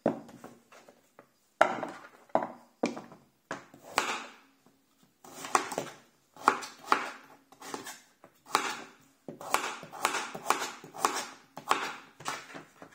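A kitchen knife cutting raw butternut squash into small cubes on a cutting board: irregular knocks as the blade goes through the firm flesh and strikes the board, about one or two a second.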